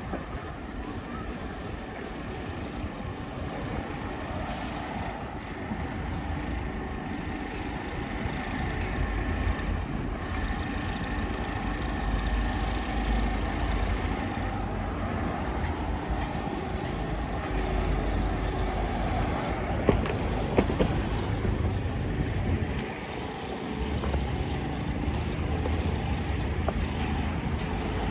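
City street traffic: motor vehicles running and passing on a wide road, a continuous low rumble that slowly grows louder, with a couple of sharp clicks about two-thirds of the way through.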